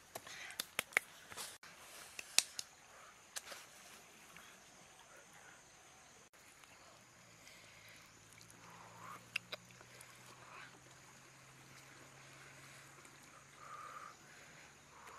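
Quiet hand-handling of a cooked whole fish in a wicker basket: a few sharp clicks and taps in the first few seconds, then soft sounds of fingers pulling the flesh apart.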